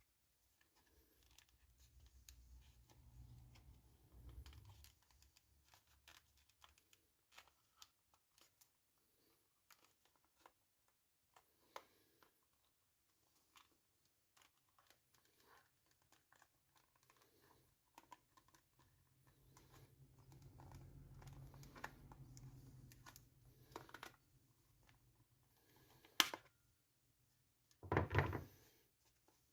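Quiet handling of packaging: scattered clicks with rustling and tearing of wrapping. A sharp knock comes near the end, followed by a brief louder rustle.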